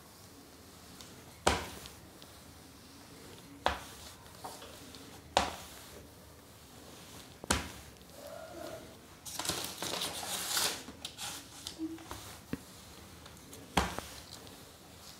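Wooden rolling pin working kaju katli dough on butter paper over a stone counter, giving a sharp knock about every two seconds, with a second or so of paper crinkling a little past the middle.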